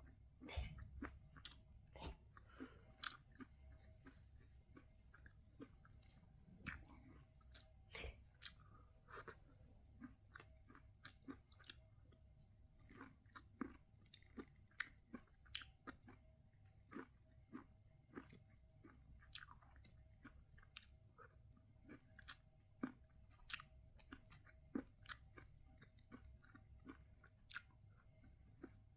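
Someone chewing and biting sweet corn close to the microphone: quiet, irregular crunches and mouth clicks, about one or two a second, over a faint steady hum.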